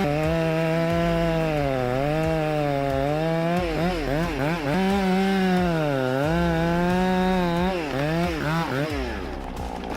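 Two-stroke chainsaw running at high revs while cutting wood, its engine pitch sagging under load and recovering several times, then dropping away near the end.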